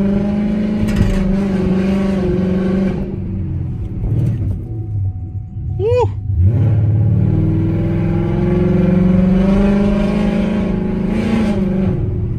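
2018 Ford Mustang GT's 5.0-litre V8 running under way, heard from inside the cabin. It eases off and quietens for a few seconds in the middle, a brief chirp sounds about six seconds in, then the engine climbs steadily in pitch as the car accelerates, dropping back near the end.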